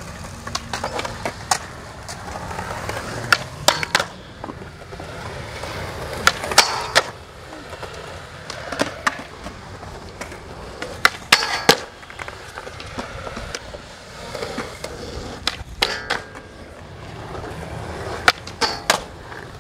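Skateboard rolling on concrete, with repeated sharp clacks and knocks as the board is popped and lands.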